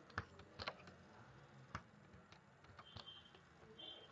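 Faint, scattered clicks of a computer mouse and keyboard, about half a dozen sharp clicks over a near-silent background.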